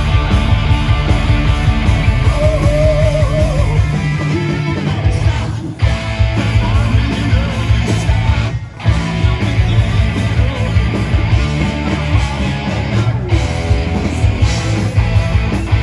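Loud punk-rock band music led by guitars, with two brief breaks about six and nine seconds in.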